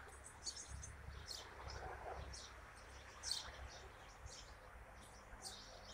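Small birds chirping faintly, a scatter of short high chirps, over a low rumble.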